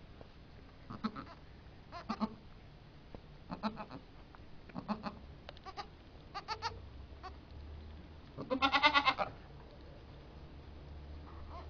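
Goats bleating: about six short, quavering bleats roughly a second apart, then one longer, louder bleat about nine seconds in.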